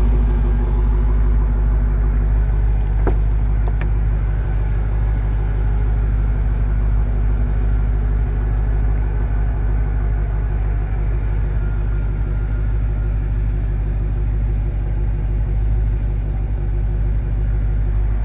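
Supercharged 6.2-litre Hemi V8 of a 2015 Dodge Challenger SRT Hellcat running steadily at low revs with a deep, even rumble. Two brief clicks come about 3 and 4 seconds in.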